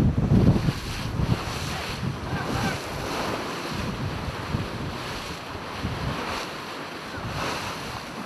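Wind buffeting the microphone over the rush of sea waves and spray. A heavy wind rumble at the start eases after about a second into an even rush of water, with occasional brief surges.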